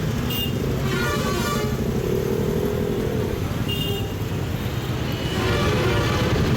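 Busy road traffic rumbling past, with several short vehicle horn toots.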